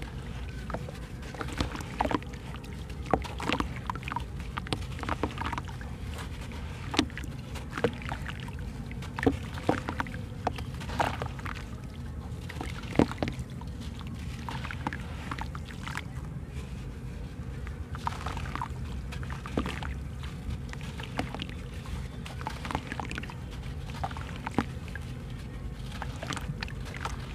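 Water sloshing and splashing in a basin as a block of dusty sand-cement is dipped and crumbled by hand, with wet sand squeezed and dropped back into the water. Scattered sharp crunches and splashes come every second or so, over a steady low rumble.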